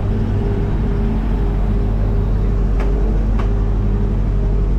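Cabin noise of a propeller airliner: a loud, steady drone of the engines and propellers with a heavy low rumble and a couple of faint clicks in the middle.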